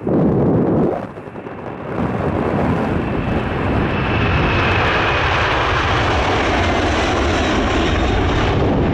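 Boeing 747-400 jetliner flying past on its landing approach: the jet noise builds after about two seconds into a loud, steady rush with a high whine running through it. Wind buffets the microphone in the first second.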